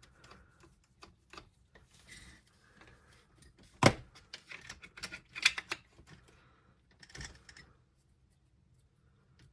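Small clicks and taps of hand tools and small parts being worked while a shock is taken off an RC crawler. The clicks are irregular, with one sharp click about four seconds in the loudest and a quick run of clicks a second or so later.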